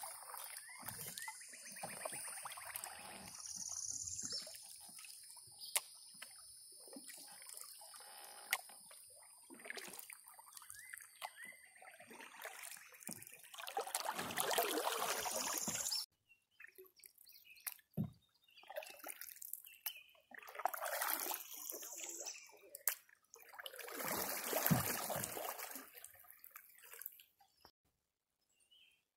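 Canoe paddles dipping and pulling through river water, each stroke a splashy swish with dripping, repeated every few seconds. A steady high whine runs under the first half and cuts off suddenly about halfway through.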